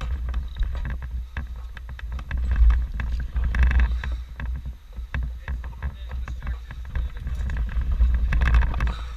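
Wind buffeting the microphone in a heavy, uneven rumble, with scattered knocks and clatter and two brief scraping rushes of noise.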